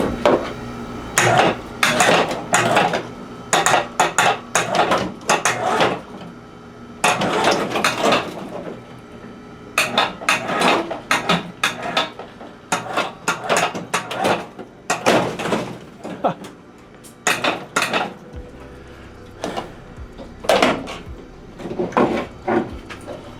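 Metal clanking and clattering in repeated bouts, with short pauses between them, from tools and metal parts being handled while the Karmann Ghia body is separated from its chassis.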